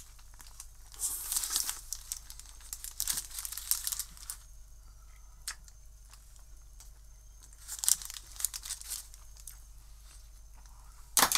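Paper wrapper around a hamburger crinkling and rustling in the hands in several short bursts, the last one sharp near the end.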